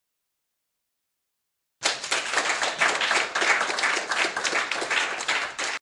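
Crowd applause: many hands clapping at once in a dense, even patter. It starts suddenly about two seconds in and cuts off sharply at the end.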